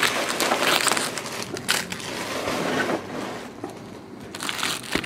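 Foil trading-card pack wrappers crinkling and rustling as they are handled and moved in a pile. The crackling eases off about three seconds in and picks up again near the end.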